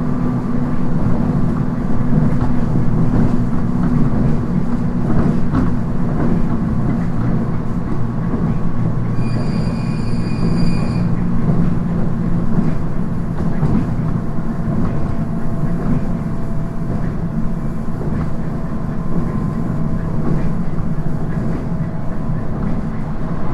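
Interior running sound of a JR East 719 series electric train: steady rumble of wheels and motors under way, in a car known for unusual running noise. A short high ringing tone sounds for about two seconds around ten seconds in.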